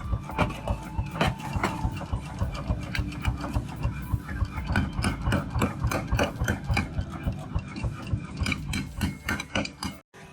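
Quick, regular metalworking strokes on a knife blade, about four or five a second, cutting off abruptly near the end.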